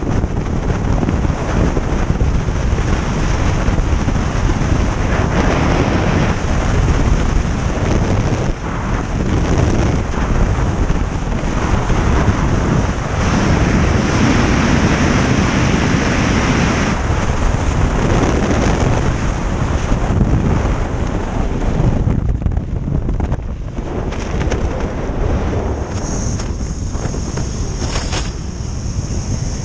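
Loud, steady wind rushing over the microphone in skydiving freefall. About 22 seconds in it eases and becomes more uneven, as happens once the parachute is open, with a few sharp bursts of buffeting near the end.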